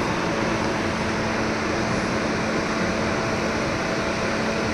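Steady rushing noise with a faint low hum, like a machine or fan running, holding an even level throughout.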